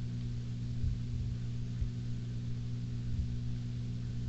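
Aquarium pump humming steadily, a low electric buzz with a faint hiss above it.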